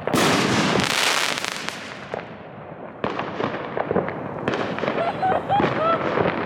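Fireworks crackling and popping in dense rapid strings. A fresh loud string starts suddenly about three seconds in.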